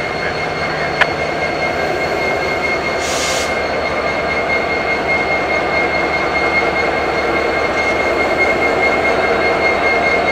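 Freight train cars rolling on the rails, a steady rumble with a steady high-pitched squeal running through it. A sharp click about a second in and a short hiss about three seconds in.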